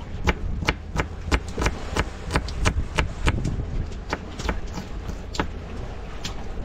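A quick, uneven run of sharp knocks or taps, about three a second, that stops a little after five seconds, over a steady low rumble.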